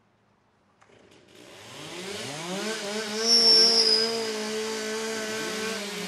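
Two STIHL two-stroke chainsaws warming up, revved again and again so their pitch rises and falls. They come in about a second in and are loud by the third second.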